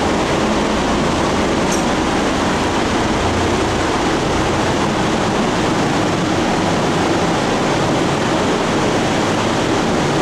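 Steady, loud rushing noise with a low rumble underneath, unbroken throughout.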